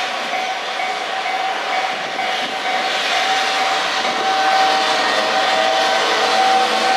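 Freight train of empty Koki container flat wagons, hauled by an EF210 electric locomotive, rolling past over a level crossing, its wheels running on the rails. Through it a steady, ringing tone, typical of the crossing's warning alarm, keeps sounding; the whole grows a little louder about halfway through.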